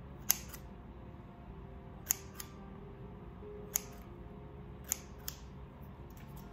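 Kitchen scissors snipping beard hair: about seven sharp single snips a second or so apart, some in quick pairs.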